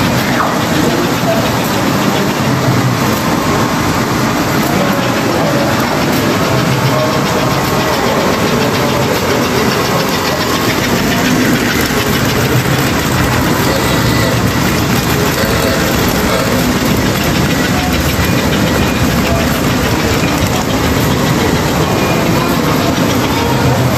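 Model trains running on a layout's track: a steady rolling rumble and whir that carries on unbroken.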